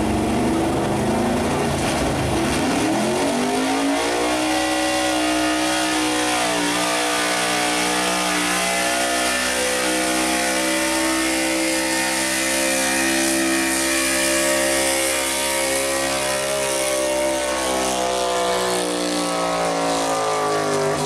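Small-block gas V8 in a pulling truck, run at high revs under full load while it drags a weight-transfer sled. The revs climb over the first few seconds, hold steady through the pull, and ease off at the very end.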